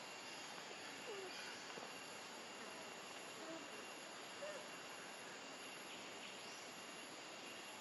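Quiet outdoor background: a steady hiss with a thin, high insect drone, and a few faint short animal calls about one, three and a half and four and a half seconds in.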